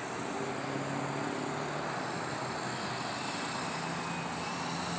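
Blade 120 SR micro electric RC helicopter in flight, its rotor and motor humming and shifting up and down in pitch as it manoeuvres, over a steady wash of background noise.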